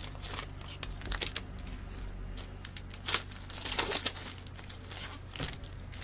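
Wrappers of Upper Deck SP Authentic hockey card packs crinkling in scattered short rustles as the packs are cut open and laid down.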